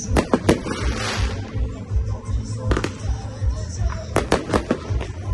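Fireworks bursting overhead: a quick cluster of sharp bangs just after the start, one more near the middle, and a run of several about four seconds in. Music with a steady bass beat plays underneath.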